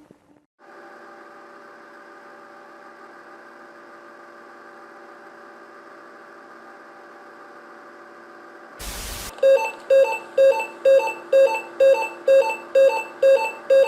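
Emergency broadcast signal: a steady electrical hum made of several held tones, cut by a short burst of static about nine seconds in, then a regular alert beep repeating about twice a second as the attention signal before an announcement.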